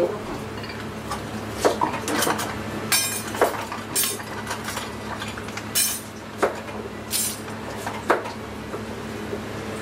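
Kitchen clatter of a bowl and dishes: about a dozen sharp clinks and knocks scattered over a steady low hum, while udon noodles are portioned into a bowl by hand.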